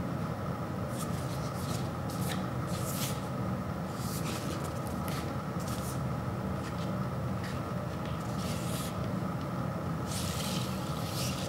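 Paper record sleeve being handled: short rustles and scrapes come and go, then a longer sliding hiss about ten seconds in as the transparent red vinyl LP is drawn out of its paper inner sleeve. A steady low hum runs underneath.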